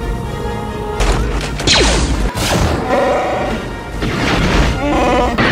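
Orchestral film music under science-fiction battle sound effects. A heavy boom hits about a second in, falling zaps follow, and another crash comes around two and a half seconds in.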